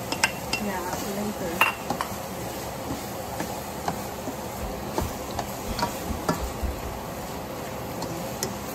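Spatula stirring and scraping fried pork pieces and sautéed tomatoes in a stainless steel pan over a steady light sizzle. Scattered sharp clacks of the spatula against the pan and the serving bowl, the loudest in the first two seconds while the pork is scraped into the pan.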